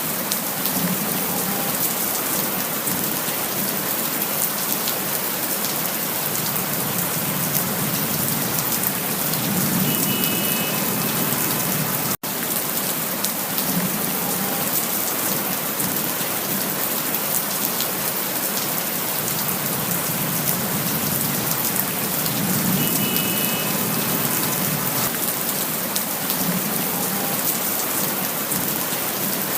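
Steady rain falling, a constant hiss with many individual drops ticking close by. The sound cuts out for an instant about twelve seconds in.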